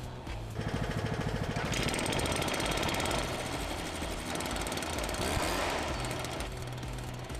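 Stihl SR 420 mist blower's two-stroke engine running, revved up to high speed about two seconds in and held there, then dropping back to a lower speed near the end.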